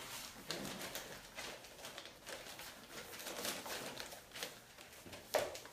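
Puppies scuffling and mouthing a retrieve item, with soft low grunting sounds and scattered clicks and rustles, and one sharper knock near the end.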